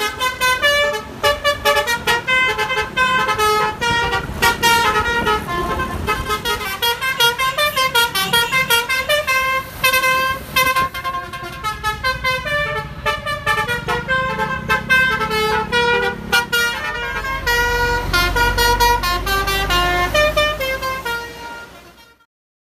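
Bus basuri (telolet) musical horn playing a fast tune of short stepped notes, one after another without a break. A bus engine rumbles underneath from about halfway through, and the sound fades out near the end.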